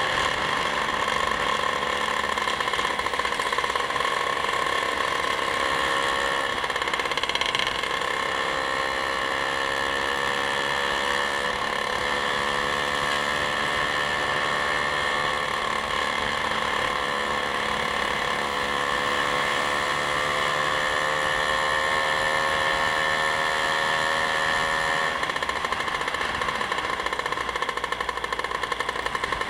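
Motorcycle engine running steadily under way, its note rising slowly over much of the stretch and changing about five seconds before the end.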